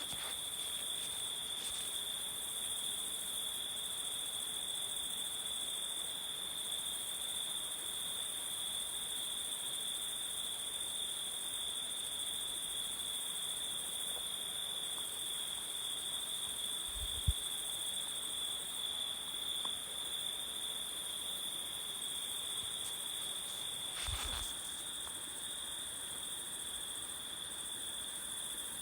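Jungle ambience: a steady, high-pitched insect chorus trilling without a break. A short, sharp low thump sounds about seventeen seconds in, and a softer low knock about twenty-four seconds in.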